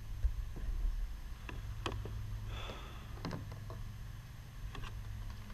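Kayak being paddled: scattered light clicks and knocks of the paddle against the plastic hull and water dripping from the blades, over a low steady rumble.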